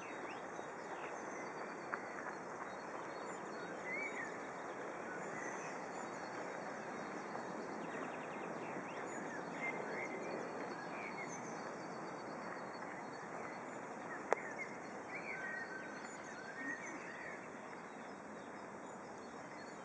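Outdoor ambience: scattered songbird chirps over a steady background wash of noise, with a single sharp click about two-thirds of the way through.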